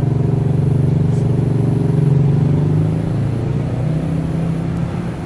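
An engine running steadily, a low hum whose pitch eases down slightly about three seconds in.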